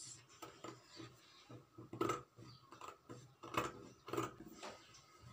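Scissors cutting fabric: a series of short, irregular snips, the loudest about two seconds in.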